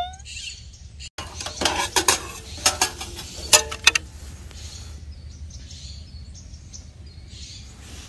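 Metal clinks and clicks from the Dash mini toaster oven's tray and rack as the finished toast is taken out, a quick run of sharp clatter lasting a couple of seconds. Then birds chirp faintly.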